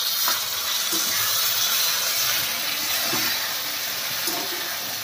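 Vegetables and freshly added chilli paste and Schezwan sauce sizzling steadily in a hot iron kadhai as they are stirred with a steel spatula.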